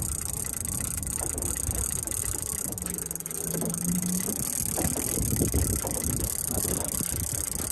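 Boat at sea: water slapping and sloshing against the hull over a steady hiss and low rumble, with a brief low hum about three seconds in.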